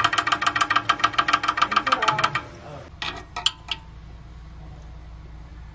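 Maserati Ghibli exhaust valve flap rattling in a fast, even clatter of about eight metallic ticks a second over the engine's running. It is the sign of play in the exhaust valve. The rattle stops about two and a half seconds in, a few single clicks follow, and then only a low steady hum remains.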